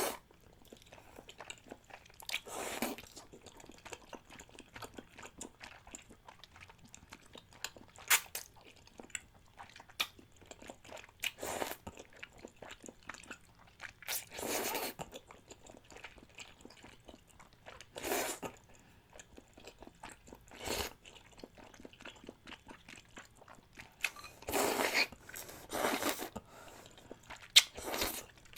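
Close-miked eating of thick, chewy Chinese glass noodles: wet open-mouth chewing and smacking made of many small clicks, with a handful of short, louder noisy mouthfuls spread through.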